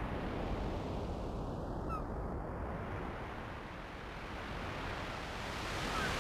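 Roland Super Jupiter analogue synthesizer sounding a noise-based sound effect: a filtered hiss that slowly swells and sweeps, with a short high chirp about two seconds in and a pair of chirps near the end, an imitation of surf with birds calling.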